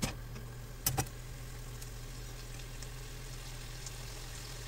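Pasta cooking water simmering and sizzling in a frying pan with linguine and cherry tomatoes, over a steady low hum. Two sharp clicks come in the first second.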